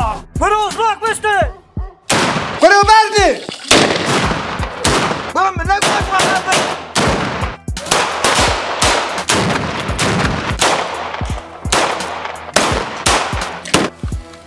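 Rapid gunfire: many sharp shots in quick, irregular bursts, with a few short pitched whines rising and falling between them.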